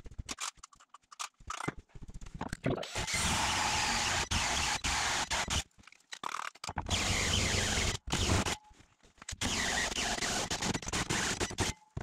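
Cordless drill driving a hole saw through a wooden floor panel in several bursts of one to three seconds, each cutting off abruptly. The drill is one its owner thinks is on its last leg.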